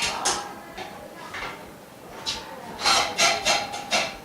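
Frame bars being handled during assembly: a series of short scraping and rubbing strokes, quickest together in the last second or so.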